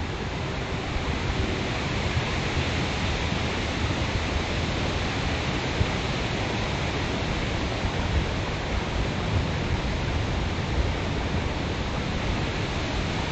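Steady, even rushing noise throughout, with no distinct calls or knocks standing out.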